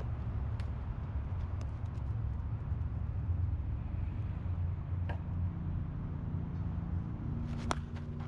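Softball bat striking the ball once, a single sharp crack about three-quarters of the way in, over a steady low rumble. A few faint taps come before it.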